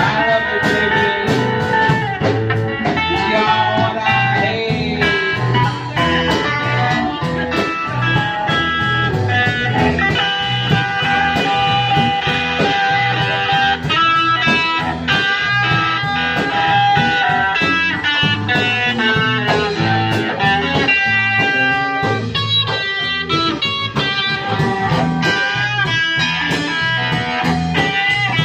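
Live blues band playing an instrumental passage without vocals: electric guitar playing held, bending notes over bass guitar and drums.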